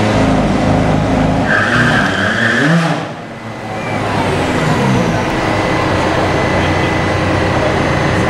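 McLaren 570S twin-turbo V8 running at low speed while creeping up to a drag strip start line, its pitch swinging with small blips of the throttle and one rev about two and a half seconds in. A brief high-pitched squeal runs from about one and a half to three seconds in.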